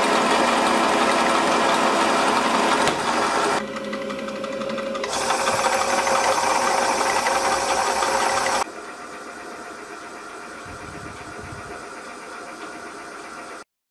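Myford Super 7 lathe running under power with a steady mechanical whirr and gear whine, its drive engaged to the leadscrew through the quick change gearbox. A few seconds in the sound dips and shifts, and the lathe runs on with its back gear engaged. Past the middle it drops to a much quieter steady hum that cuts off near the end.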